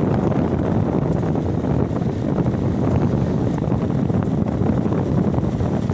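Steady wind rumble on the microphone of a moving motor scooter, mixed with its running and road noise.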